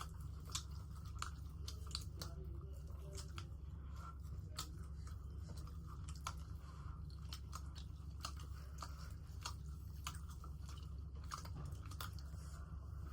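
Close-miked chewing and biting of crunchy food, with irregular crisp crunching clicks scattered throughout, over a steady low hum.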